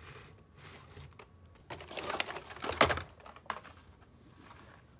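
Plastic blister-pack Hot Wheels cards and the cardboard case being handled: rustling, with a louder clatter and sharp clicks about two to three seconds in as cards are shuffled and the next one is pulled out.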